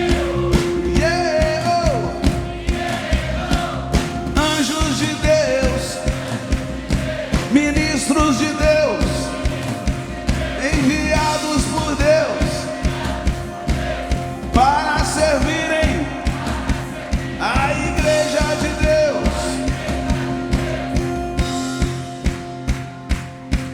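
Live praise band playing an upbeat song with a steady, driving drum beat under sustained chords and a melody line that slides between notes.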